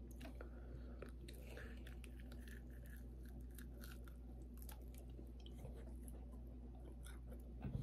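Faint chewing and crunching of fried, breaded pork chop, many small wet clicks and crackles scattered throughout, over a steady low hum.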